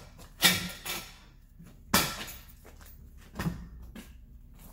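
Metal knocks and clunks from a steel lower control arm and coil spring being wrestled into position by hand: four separate knocks, the sharpest about two seconds in.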